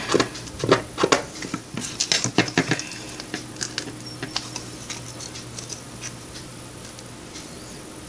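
Knife scraping and clicking as it cuts through glittery tape on a plastic light switch cover against a hard surface: a quick run of scratchy clicks for about three seconds, then only faint occasional scratches as the edge is trimmed. A low steady hum sits underneath from about three seconds in.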